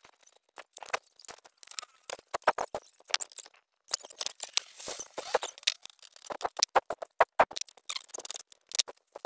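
Clicks, knocks and scraping of a hand tool and metal and plastic parts as a scooter's throttle body is worked loose and pulled off the engine, with a longer scrape about four to five seconds in.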